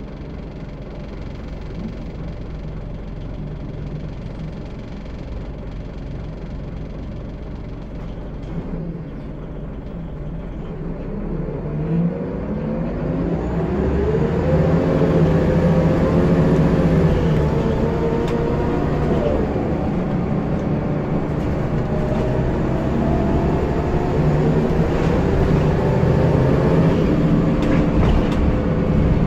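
Scania L94UB bus heard from inside the saloon: the diesel runs at a low steady hum for about twelve seconds. Then it grows louder as the bus pulls away, with a whine that rises and falls through the gear changes as it accelerates.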